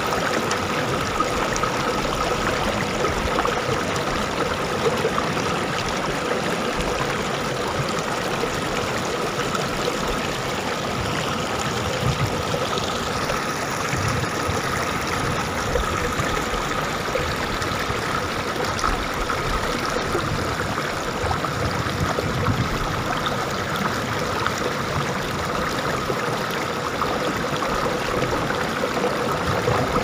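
Shallow, fast river running over stones and gravel in small rapids: a steady rush of water.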